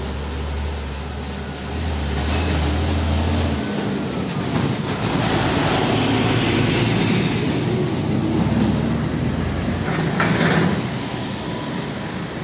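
UD Nissan PK-series truck's diesel engine droning low as it pulls a lowboy trailer loaded with an excavator past. The drone drops away about three and a half seconds in, and the tyres and the loaded trailer then rumble louder as they go by.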